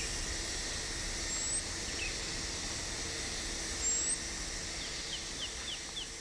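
Outdoor ambience: a steady low rumble under birdsong, with two short high whistles and, from about five seconds in, a quick run of short falling chirps, about three a second.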